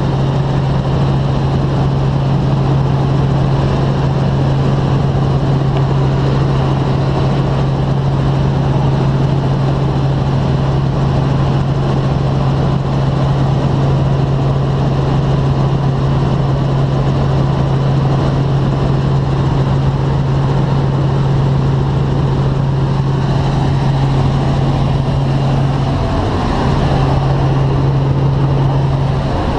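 Light helicopter in cruising flight, heard inside the cabin: the steady drone of its engine and rotors with a strong constant low hum, which wavers briefly near the end.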